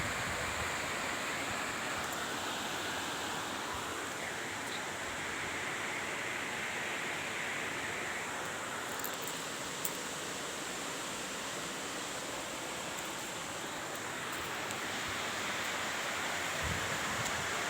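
Waterfall rushing steadily, an even roar of falling water, with a brief low buffet of wind on the microphone near the end.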